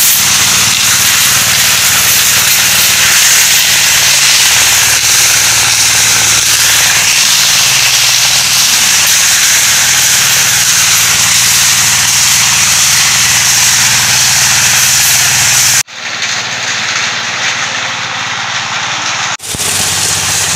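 The small engine of a one-bagger concrete mixer running steadily under a loud, even hiss. The sound breaks off suddenly about sixteen seconds in, returns quieter, and shifts again shortly before the end.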